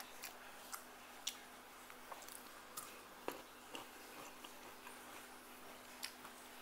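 Eating sounds: faint, irregular clicks and smacks from chewing and from fingers picking food off a steel plate, about ten in all.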